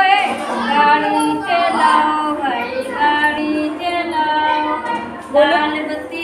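A woman singing a children's action song unaccompanied, in a run of short held notes.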